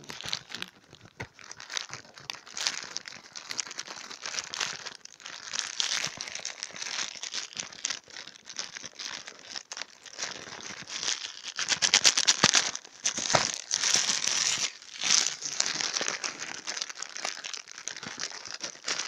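Plastic bubble-wrap packaging crinkling and crackling as it is handled and pulled open by hand. It gets louder in the second half, with a fast run of crackles.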